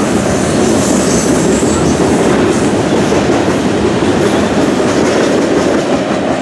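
Loaded freight train of tank cars rolling past on the rails: a loud, steady rumble and rattle of wheels and cars.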